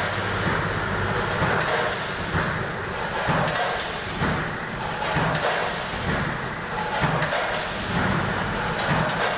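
Automatic sugar packing machine with a weigher running: steady mechanical noise with repeated clunks and knocks as it works through its cycle.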